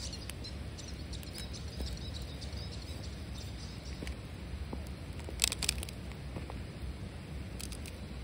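Wood fire crackling in a steel fire ring, with scattered small ticks and a quick cluster of sharp pops about halfway through, over a steady low rumble.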